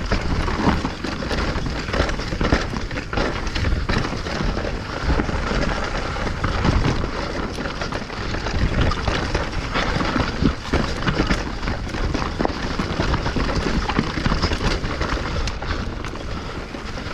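Mountain bike riding over rough dirt singletrack: a steady rush of wind on the microphone and tyre noise, with frequent rattling knocks from the bike over roots and rocks.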